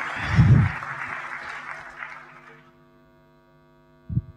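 Applause played over the PA from the sound desk, fading out over the first two to three seconds and leaving a low steady hum. There is a loud microphone-handling thump about half a second in, and a knock near the end as the handheld microphone goes into its stand.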